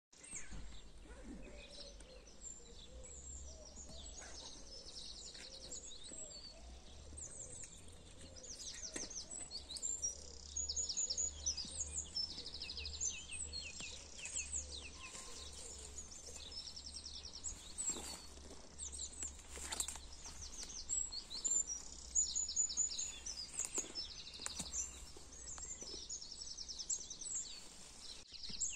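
Several songbirds singing at once, with many quick trills and repeated phrases, over a low steady rumble.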